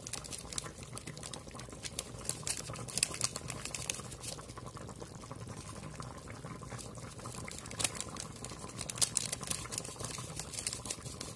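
Watery chicken and potato curry boiling hard in a kadhai, a continuous crackle of small popping bubbles as the gravy boils down.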